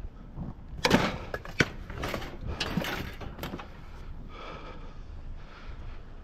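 Several sharp knocks and clanks, a few in quick succession, from steel bed rails being handled as scrap.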